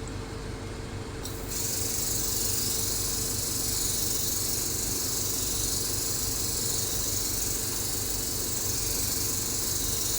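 Spray mist gun of a hydrafacial machine hissing steadily as it sprays a fine water mist. The hiss jumps louder about one and a half seconds in, over a steady low hum.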